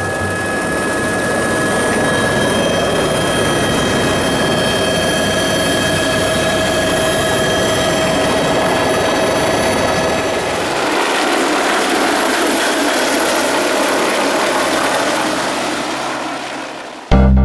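Small turbine helicopter in flight: a steady high whine over rushing rotor and wind noise. Heard first from inside the cabin, then from the ground as it flies overhead. The low rumble drops away about ten seconds in and the sound fades near the end.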